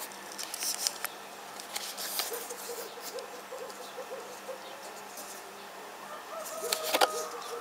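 Clicks and rustles of a leather knife sheath being turned in the hand close to the microphone, sharpest near the start and about seven seconds in. A run of short clucking calls, like a hen's, sounds between them.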